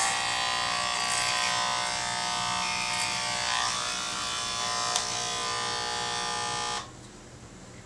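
Electric hair clippers buzzing steadily as they shave a head, then switched off suddenly about seven seconds in.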